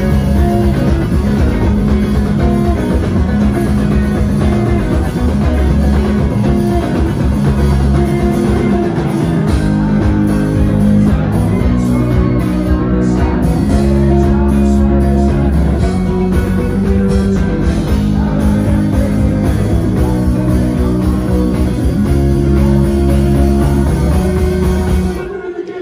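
Live rock band playing loud, with electric guitar, bass guitar and drum kit. The music stops suddenly near the end.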